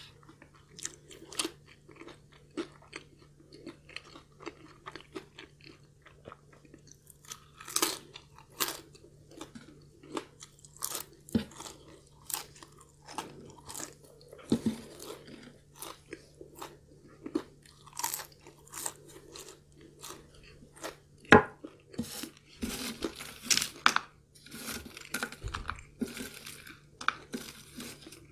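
Close-miked chewing of crispy fried curly fries, with many short crunches scattered throughout and one loud sharp crunch about two-thirds of the way through. A faint steady low hum runs underneath.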